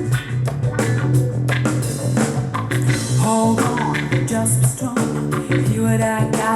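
A pop-rock song with drum kit, a prominent bass line and guitar, with a brief sung melody, played back through a Telefunken RA 100 integrated amplifier as an audio test.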